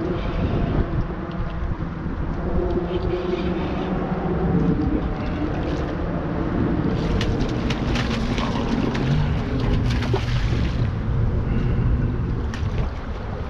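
Wind buffeting the microphone over the rush of fast tidal water, with a boat motor humming underneath. A run of sharp clicks comes about halfway through.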